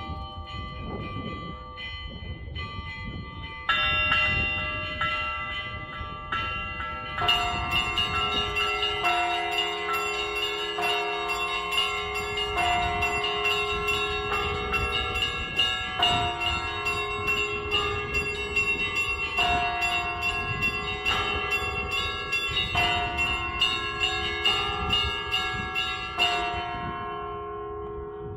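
Orthodox church bells ringing in a peal from the bell tower. A few bells strike at first, more and deeper bells join about four and then seven seconds in, and the peal goes on as many quick overlapping strikes. The striking stops a couple of seconds before the end and the bells ring out. A low rumble runs underneath.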